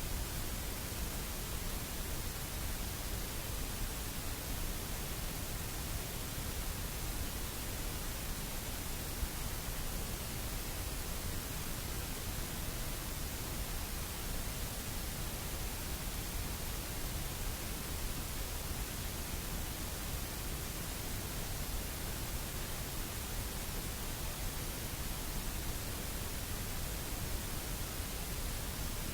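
Steady, even hiss of static, unchanging throughout, with no other sounds.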